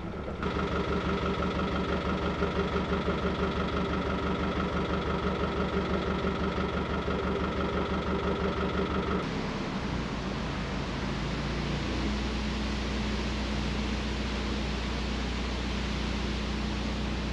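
Narrowboat's diesel engine running while cruising, with a steady pulsing beat. About nine seconds in the sound changes abruptly to a smoother, hissier drone.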